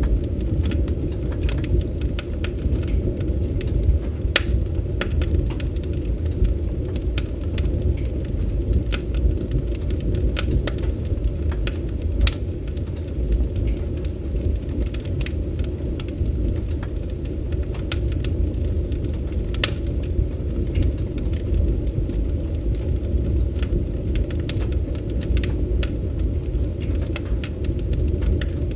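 Fireplace fire crackling: scattered sharp snaps and pops over a steady low rumble.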